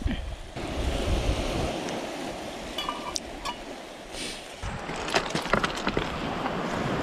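Wind buffeting the microphone over the wash of waves on a pebble shore. A short metallic ring, like a steel camp mug being knocked, comes about three seconds in. Near the end there is crackling and rustling as a nylon tarp is handled and folded.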